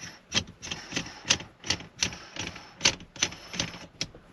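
Irregular sharp metal clicks, about three a second, from the red metal shift knob being twisted and worked by hand on its threaded shifter extension as it is turned to line up the logo.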